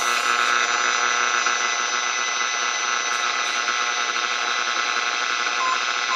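Icom IC-R71E receiver's speaker in AM mode at 390 kHz, giving out steady buzzing interference noise laced with many fixed hum tones. The listener calls it terrible noise and blames something a neighbour switched on. Near the end a short beep of a non-directional beacon's Morse identification tone comes through the noise.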